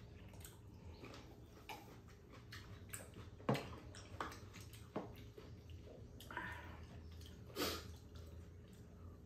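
Quiet eating sounds at a table: a few scattered sharp clicks of chopsticks against a bowl and pan, with chewing and sipping.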